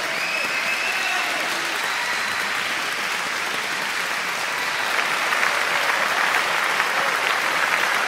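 Audience applauding, a steady crackle of many hands clapping that grows a little louder about five seconds in.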